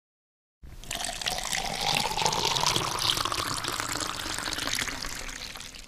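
Water pouring in a steady stream, starting about half a second in, with a faint tone that rises over the first couple of seconds; it fades away at the very end.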